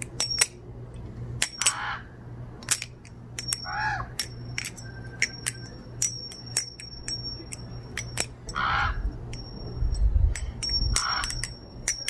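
Titanium-handled butterfly knife (balisong) being flipped: a quick, irregular run of sharp metallic clicks and clacks as the handles swing and strike, several of them followed by a brief high ring. Crows caw several times in the background.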